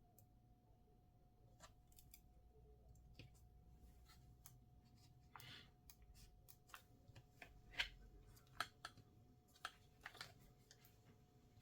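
Faint scattered clicks and taps of hands handling the opened Chromebook, a few sharper ones about eight to ten seconds in, over a faint steady tone.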